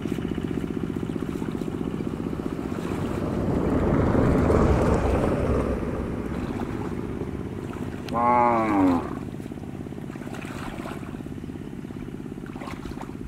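Muddy pond water sloshing and splashing as a mosquito net is dragged through it, over a steady low machine hum. About eight seconds in comes a short call that falls steeply in pitch.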